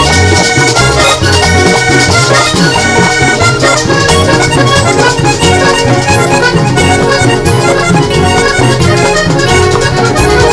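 Live vallenato band playing an instrumental passage without singing: the accordion leads over a bass line and percussion, steady and loud throughout.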